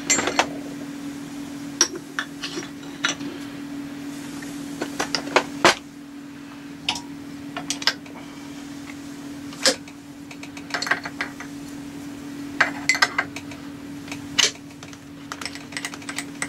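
Irregular metallic clinks and clicks of tools being handled around a small CNC milling machine, over a steady hum.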